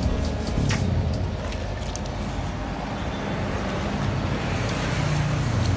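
Road traffic noise: passing motor vehicles with a low engine hum, which fades early on and grows louder again about five seconds in.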